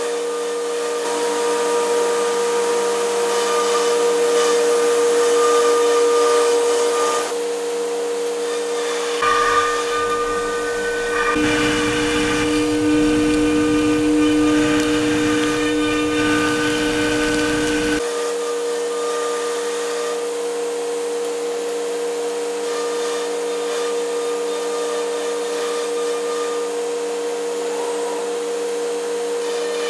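CNC router spindle running with a steady high whine while its compression bit cuts through melamine sheet, over a constant rush of air from the dust extraction. The pitch mix and grit of the sound change abruptly several times, about 7, 11 and 18 seconds in.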